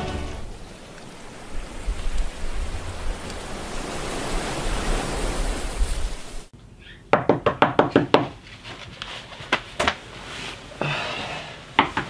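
Steady rushing noise of a ship's wake and wind at sea for about six seconds. Then, after a sudden cut, rapid repeated knocking on a cabin door in quick runs of several knocks, twice.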